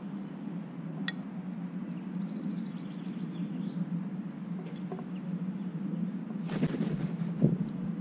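Steady low background rumble with a few faint bird chirps; near the end a short rustling burst and a sharp thump.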